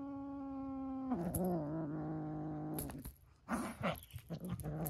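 Kitten growling in a long, drawn-out moan while clutching a toy in its mouth, the possessive 'woo-woo' of a cat guarding its prey. The moan drops lower and wavers about a second in, then breaks into shorter growls near the end as the toy is tugged away.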